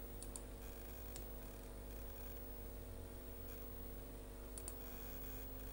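Faint steady electrical hum and hiss from a PC sound card's recording, with a few soft computer-mouse clicks: a quick pair near the start, a single click about a second in, and another pair past four and a half seconds.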